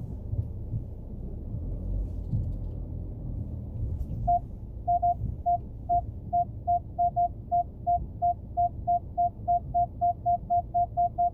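Car parking sensor beeping, starting about four seconds in and speeding up until the beeps nearly run together: the warning that the car is closing in on an obstacle. A low engine rumble runs underneath.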